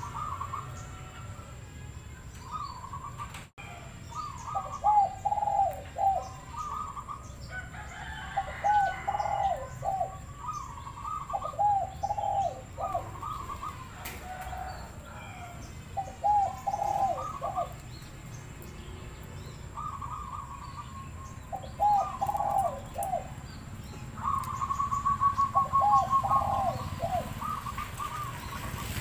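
Zebra dove (perkutut) cooing: repeated phrases of quick, rolling coos, each cluster a few notes, coming every couple of seconds, with shorter higher notes between them.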